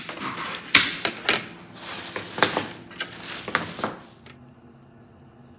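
Frozen vareniki clicking and knocking against a plastic tray as they are picked up by hand, with a plastic bag rustling in the middle; the handling stops about four seconds in, leaving a faint low hum.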